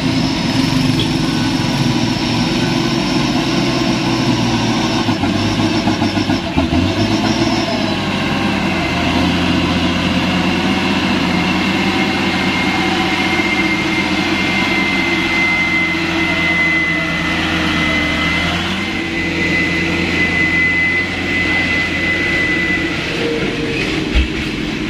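Loaded Mitsubishi Fuso diesel truck engine running as the truck crawls past over the rough dirt road, with a motorcycle passing near the start. A steady high whine rides over the engine through the second half.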